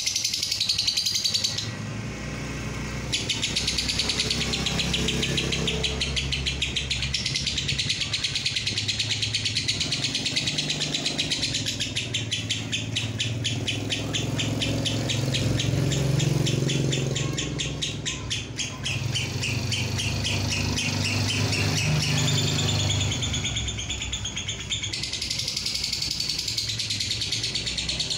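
Fischer's lovebird giving a long 'ngekek' chatter: a fast, unbroken string of high, harsh notes kept up for many seconds, with a few short breaks. A steady low rumble runs underneath.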